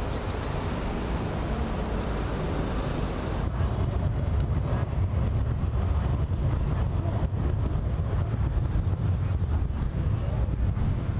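Steady low machinery rumble with a few faint clanks, typical of heavy salvage equipment such as a crane running at a work site; it gets louder after about three and a half seconds.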